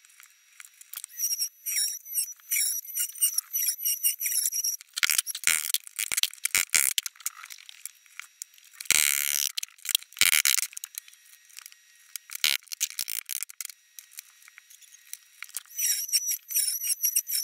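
Oscillating multi-tool cutting into hardwood floorboards in short runs, a buzzing, chattering cut with a steady high whine, near the start and again at the end. A few separate scraping bursts come between the cuts.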